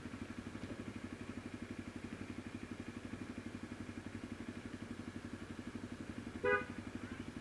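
Honda motorcycle engine idling with a steady, fast pulse. A short beep sounds about six and a half seconds in.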